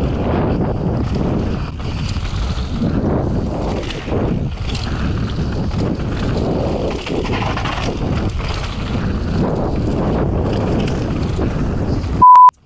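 Wind buffeting the camera microphone over the rolling of mountain bike tyres on a dirt trail and the rattle of the bike on a fast descent. Near the end the noise cuts off for a short, loud, steady beep.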